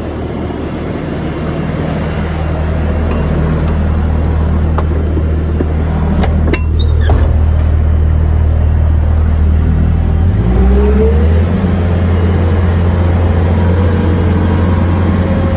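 Bobcat skid-steer loader's diesel engine running, heard from inside the cab, growing louder over the first few seconds as it is worked. About ten seconds in the engine note shifts and a short rising whine comes in.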